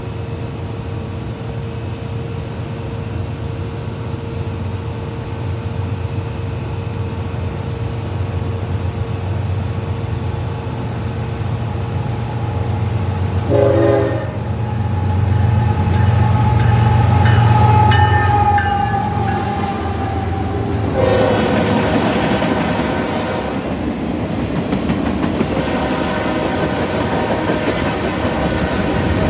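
Union Pacific diesel-hauled freight train approaching and passing, its engines rumbling louder as it nears. The locomotive horn sounds a short blast about halfway through, then a longer note that sags slightly in pitch as the locomotive goes by, then another short blast. After that the freight cars roll past with wheels clacking over the rail joints.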